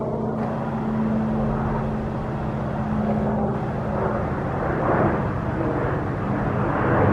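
Diesel engine of a commuter train running with a steady low drone under a rushing rumble that grows louder toward the end.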